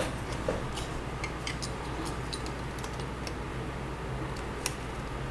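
Small plastic clicks and taps of LEGO pieces being handled and pressed together, scattered and faint, with one sharper click near the end, over a steady low hum.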